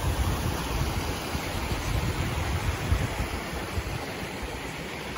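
Waterfall cascading down smooth rock slabs: a steady rush of water with an uneven low rumble underneath.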